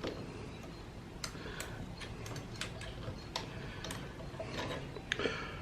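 Faint, irregular metal clicks and ticks of an Allen wrench working a screw loose on a motorcycle's gear shift lever.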